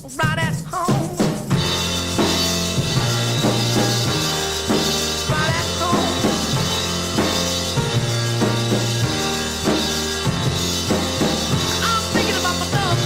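Rock music on drum kit with steady low bass notes. A wavering high melody comes first, and the full band comes in about a second and a half in.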